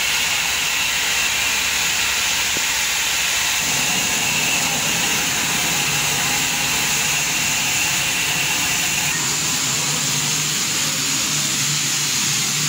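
Steam locomotive No. 213 standing at the platform, hissing steam steadily. A low, steady hum joins in a few seconds in.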